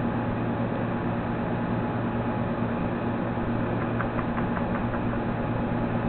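Steady background hum and hiss, with a few faint light clicks about four seconds in.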